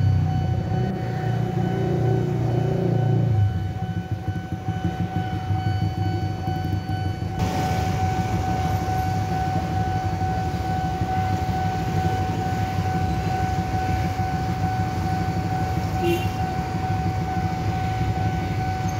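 Railway level-crossing warning alarm sounding a steady high tone while the barriers are down, over a low rumble that is loudest in the first three seconds or so.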